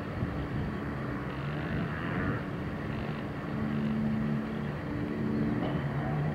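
Boeing 737-800's CFM56-7B jet engines at idle while the airliner taxis, a steady distant rumble and hum.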